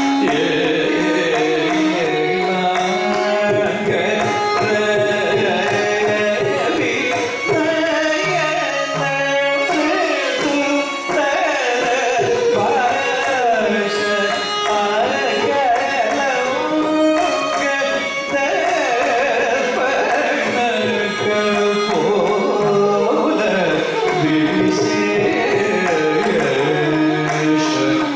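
Carnatic classical music in raga Brindavana Saranga: a male voice sings gliding, ornamented phrases, a violin follows the melody, and a mridangam plays the rhythm beneath.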